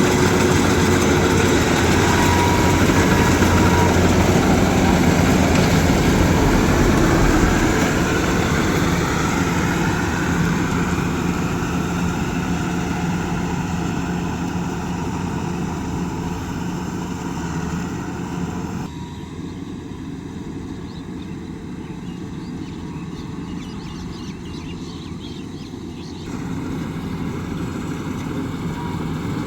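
A heavy farm machine's engine runs steadily, louder in the first several seconds and then gradually fading. It drops abruptly to a quieter level for several seconds near the end, then comes back up.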